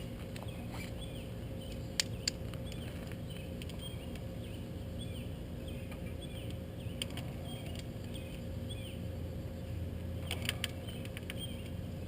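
Small birds chirping over and over, with a few sharp clicks about two seconds in and again near the end, over a steady low hum.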